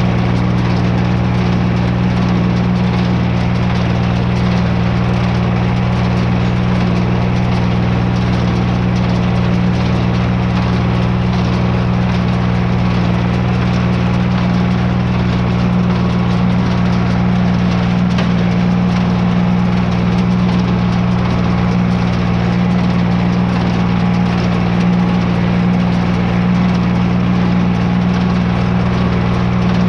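Tractor engine running at a steady, unchanging speed, a loud even drone.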